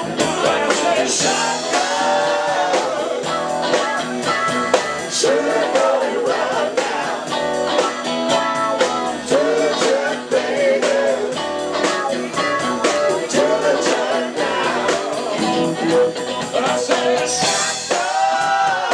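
Live band playing a blues-rock number with a steady beat: electric bass, drum kit and saxophone, with a man singing.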